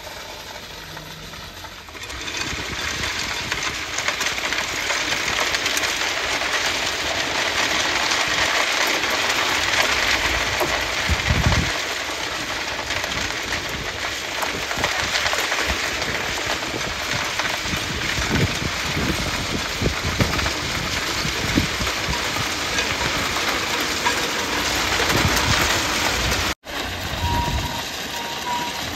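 Crushed-stone railway ballast pouring from a rail-mounted tipper truck's rear chutes and rattling onto the track as the truck rolls along, a steady hissing clatter of stone that grows louder about two seconds in. The truck's engine and wheels run underneath it, with a few low thumps.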